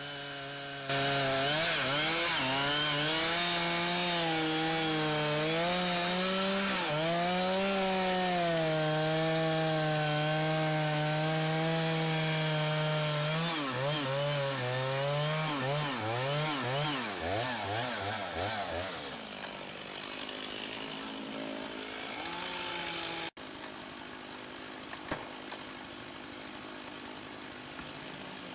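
Chainsaw running at high revs while cutting through wood, its pitch dipping and recovering under load. After about thirteen seconds it revs up and down and falls away. For the last third only a fainter steady noise remains.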